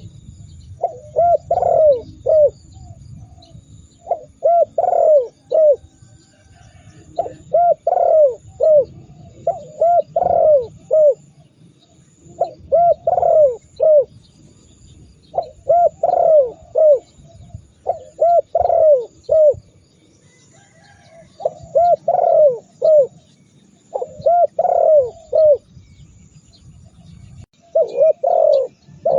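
Spotted dove (tekukur) cooing: phrases of three or four rounded coos, repeated every two to three seconds.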